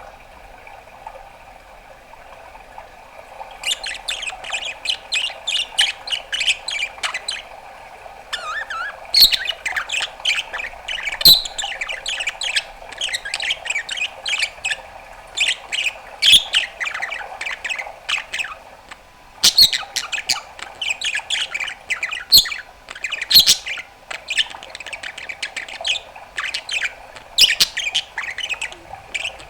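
Budgerigar warbling: fast, chattering strings of chirps, clicks and squawks that start a few seconds in and carry on with one brief break.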